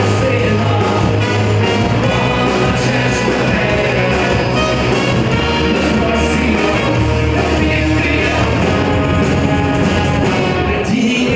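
A live band playing a rock song with accordion, electric guitar and tambourine, a man singing over it at full voice. The band plays steadily throughout over a strong bass.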